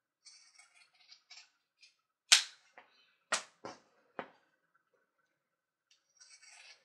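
Scissors cutting suede fringe: soft scratchy snips and rustling, then five sharp clicks over about two seconds, the first the loudest, then more rustling near the end.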